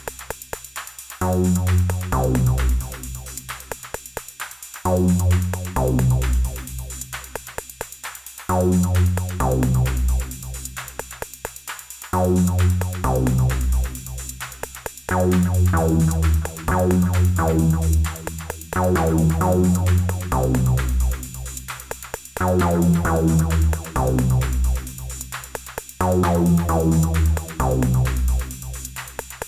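Elektron Analog Rytm drum machine playing an improvised techno pattern: low bass hits under a fast, steady run of hi-hat ticks. About halfway in the low end comes more often and fills out.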